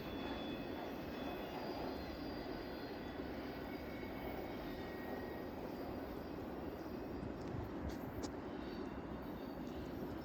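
Steady low rumble of a passing vehicle, with a few faint high thin tones in the first half.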